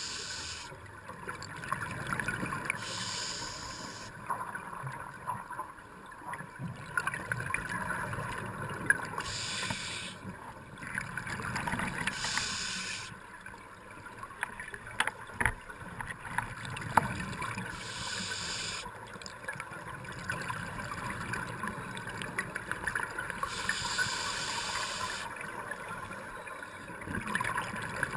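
A scuba diver breathing through a regulator underwater: a short hissing inhalation every few seconds, with bubbling, gurgling exhalations in between.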